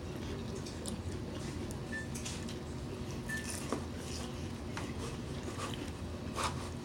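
Quiet eating sounds: tortilla chips being crunched and utensils clinking lightly against a bowl, with a couple of sharper clicks about halfway and near the end, over a steady low hum.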